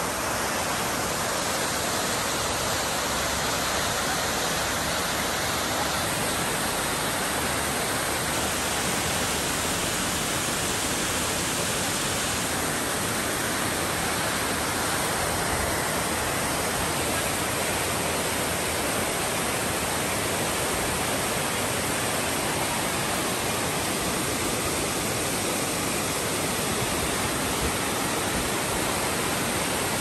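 Small rocky waterfall: water rushing and splashing down several cascades over rock, a steady, even sound of falling water.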